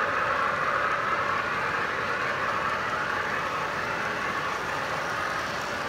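Model freight train's boxcars rolling steadily along the track, a continuous wheel-on-rail rolling noise that slowly fades a little.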